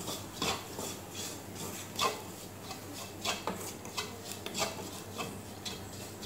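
Wooden spatula scraping and rubbing across a non-stick frying pan, stirring sautéed onions with spice powder and salt. Short, irregular strokes come a few times a second.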